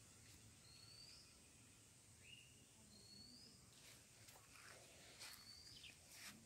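Near silence outdoors, with a bird giving short, faint rising chirps about every two seconds, plus a few faint clicks in the second half.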